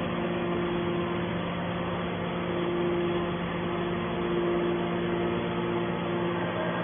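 Hydraulic scrap iron baler running with a steady low hum from its motor and pump, and a higher tone that comes and goes every second or so.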